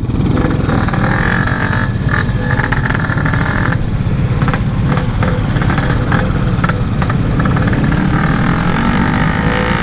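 Yamaha RX-King's 135 cc single-cylinder two-stroke engine running at a steady, even throttle while the motorcycle is ridden along.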